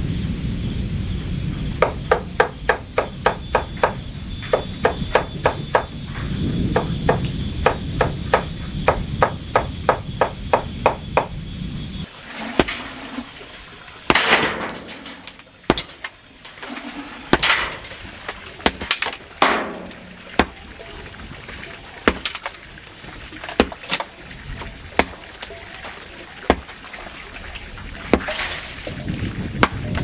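A large knife chopping fast and evenly on a wooden block, about four chops a second, for roughly the first twelve seconds. Then a sledgehammer striking a boulder, blows coming irregularly, one every second or so, some with a short ring.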